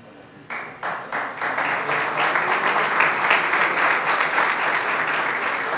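Audience applauding: a few separate claps about half a second in, swelling into steady applause.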